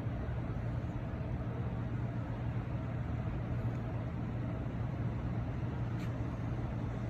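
Steady low hum and rumble of a cruise ship's machinery under way at sea, with one faint click about six seconds in.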